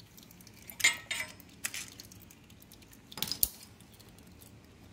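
Light metallic clinks of a hand tool against the oil filter cover and its bolts on a Royal Enfield Himalayan engine as the long cover screw is backed out. A few scattered clinks, the loudest cluster about three seconds in.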